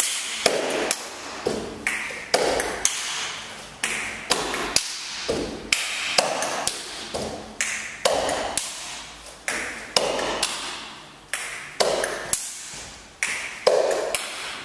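Body percussion played with the hands: a rhythm of sharp claps, snaps and slaps on the body, about two strikes a second, each fading away briefly.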